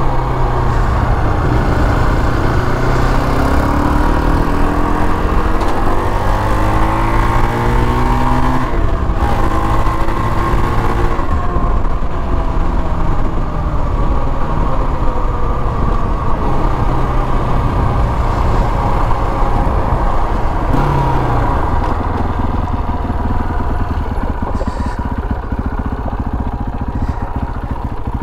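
KTM 525 XC quad's single-cylinder four-stroke engine under way, climbing in pitch as it accelerates, with a sudden break in pitch about nine seconds in before it picks up again. It then eases off and runs more evenly, dropping lower near the end as the quad slows.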